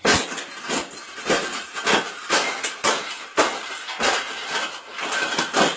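Wire cage being bent and folded flat, clanking and rattling in a run of irregular sharp knocks, about two a second.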